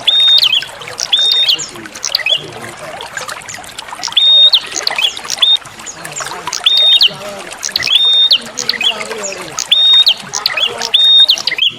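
Prenjak songbird calling: short, high, flat whistled notes, each ending in an upward flick, repeated roughly once a second with a few gaps. Trickling, gurgling water runs underneath throughout.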